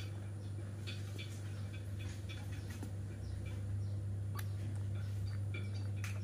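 Baby monkey sucking milk from a small feeding bottle: quick, irregular wet clicks a few times a second, with a couple of sharper clicks later on, over a steady low hum.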